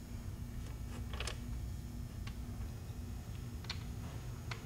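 A few light metallic clicks as oil-soaked hydraulic lifters are picked out of a steel can of oil and fitted into the lifter bores of a Chevrolet 396 big-block engine, over a low steady hum.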